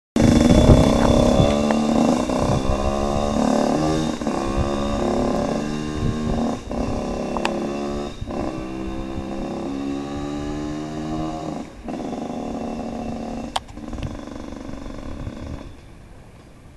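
Small two-stroke Yamaha YZ dirt bike (about 82cc) accelerating away, its engine revving up through the gears. The pitch climbs and breaks at each shift, about four times. It fades with distance and is gone near the end.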